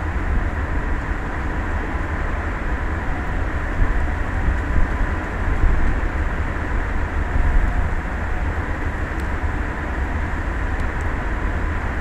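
Steady wind noise on an exposed microphone, with a gusty low rumble and a faint steady hum underneath.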